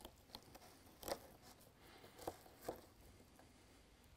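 Kombo Tool fillet knife slicing under a walleye's rib bones: a few faint crunches and clicks, the loudest about a second in.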